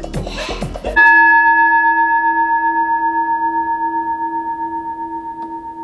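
A singing bowl is struck once about a second in and rings with a few steady tones, fading slowly with a gentle pulsing beat. It cuts off music with a rasping rhythm that plays before it.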